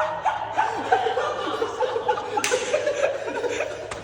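High-pitched human laughter, a rapid string of short giggles.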